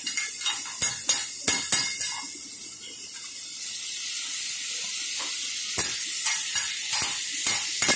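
Rice, bean sprouts and steak sizzling on a hibachi flat-top griddle while steel spatulas clack and scrape against the hot plate in quick strokes. The clacking stops for a couple of seconds about three seconds in, leaving a steady sizzle, then starts again.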